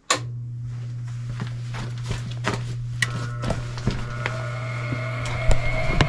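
Furnace power switched back on with a sharp click, then a steady low hum as the inducer motor starts, the first step of the furnace's ignition cycle after a broken glow plug (hot-surface ignitor) was replaced. About three seconds in, a higher whine joins the hum, with light ticks and taps throughout.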